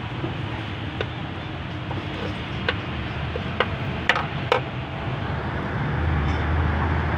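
Hand tools clinking on metal in an engine bay: about five short, sharp clicks spread over the middle few seconds, over a steady low background rumble that grows louder near the end.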